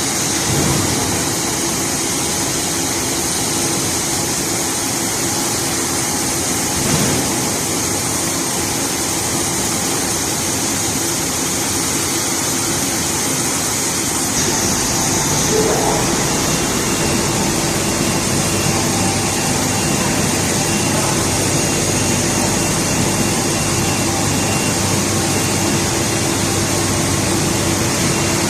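U-shaped turnover-box (crate) washing machine running: a steady hum of motors and pumps under an even hiss.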